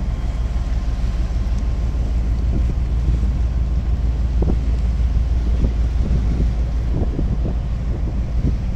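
Steady low rumble of a ship's engine at sea, with wind blowing across the microphone.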